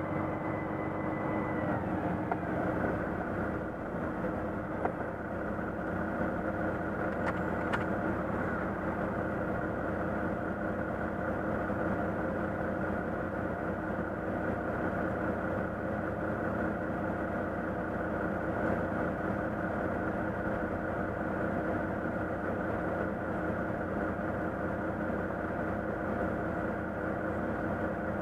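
Volvo FM truck's diesel engine idling steadily, heard from inside the cab. A high whine fades out about two seconds in.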